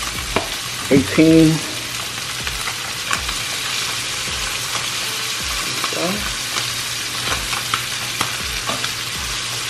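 Flounder fillets sizzling in foaming butter in a nonstick skillet: a steady frying hiss with scattered small ticks and pops.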